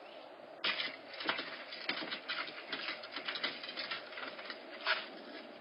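Bobcat kittens scampering and scratching about on a wooden deck: a quick, irregular run of taps and scrapes that starts suddenly under a second in, with a sharp knock about a second before the end.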